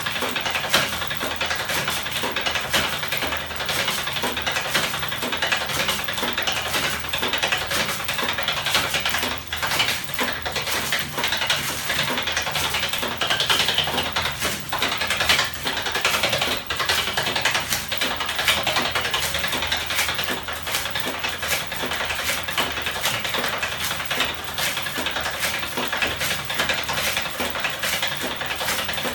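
Homemade electric-motor-driven magnet flapping-wing machine running fast: a steady, dense mechanical clatter of many rapid clicks and rattles from its moving linkages.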